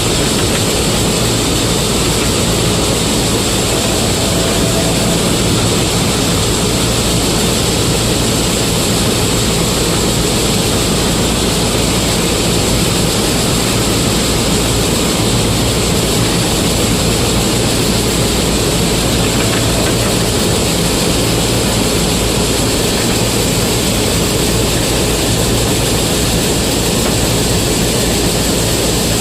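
Combine harvester engine running steadily under load, a continuous loud mechanical drone with no change in speed.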